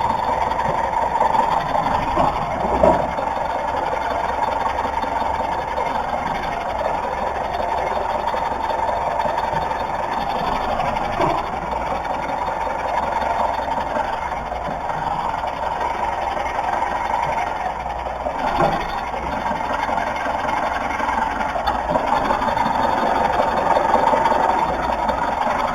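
Car running with a steady engine and road noise, and a few short knocks or clunks, the sharpest about three seconds in. These are likely the weird noise the owner suspects comes from the shock absorbers.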